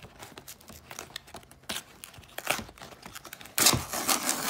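Packing tape on a taped-up Priority Mail package crinkling and crackling as it is picked and peeled, then a loud rip as the tape and cardboard are torn open, about three and a half seconds in.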